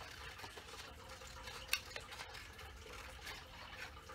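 Scissors cutting a thin paper plate: faint crisp snips and paper rustle, with one sharper snip about halfway through.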